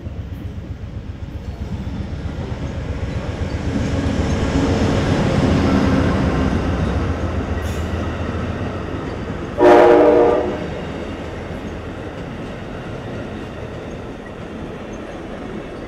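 A bilevel passenger train rolls past with a steady rumble of wheels on rail that swells and then eases. About ten seconds in, a train horn sounds one short blast, the loudest sound.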